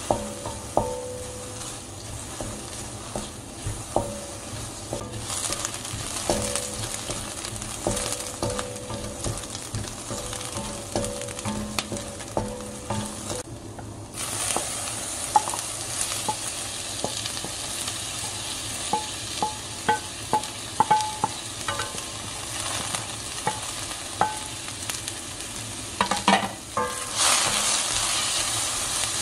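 Onions sizzling in a stainless steel frying pan while a wooden spatula stirs and scrapes, tapping and briefly ringing the pan. About halfway through, corn kernels go into the pan and the frying hiss grows louder, with frequent spatula knocks as the corn and onions are stirred together.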